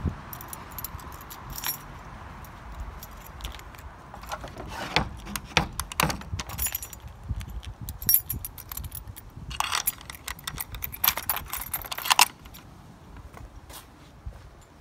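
A bunch of keys jangling and clicking as a key is worked in the lock of a wooden door to lock it: a run of sharp metallic clicks and rattles that stops about twelve seconds in.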